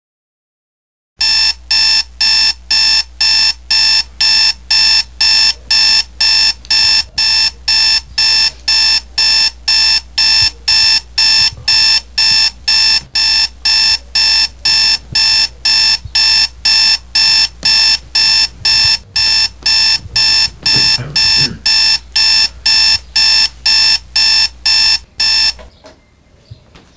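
Toshiba clock radio alarm beeping, a loud high-pitched beep repeating about twice a second. It starts about a second in and cuts off suddenly near the end as it is switched off.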